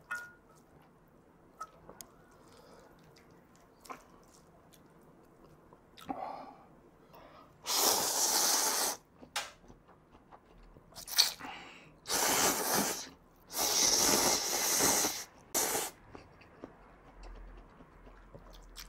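A man slurping ramen noodles close to the microphone: several long, loud slurps in a row starting about eight seconds in. Before them there are only faint clicks and handling sounds.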